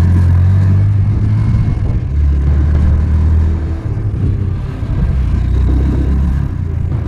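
Small motorcycle engine running under way, its pitch dropping about two seconds in and then holding steady lower.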